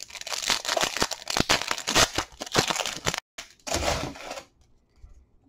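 Foil wrapper of a 2019 Bowman Chrome baseball card pack crinkling and tearing in the hands for about three seconds, followed by a shorter, softer rustle.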